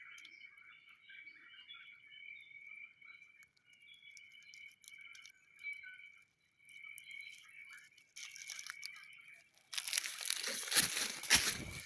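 Faint steady high-pitched chorus of rainforest insects. About ten seconds in, a much louder close crackling and crunching noise takes over.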